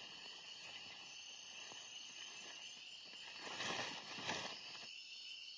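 Night-time insect chorus: crickets or similar insects chirring steadily at a high pitch, with a faint rustle in the middle.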